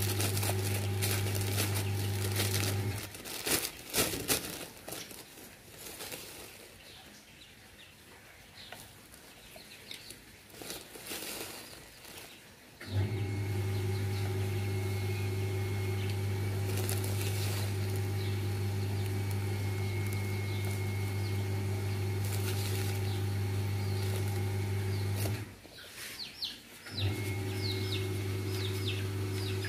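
A steady electrical hum, low and even, cuts out abruptly about three seconds in and comes back about ten seconds later. It drops out once more for a second or so near the end. In the gaps, rustling and light clicks are heard as feed and its plastic bag are handled.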